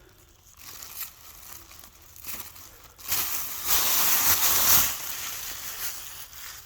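Rustling and crunching of dry leaf litter and brush being pushed through, with scattered small snaps; loudest for about two seconds in the middle, then fading.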